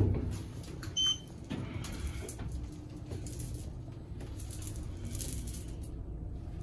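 Elevator car running with a steady low hum and rumble. There is a bump at the start, and a short, high electronic beep about a second in.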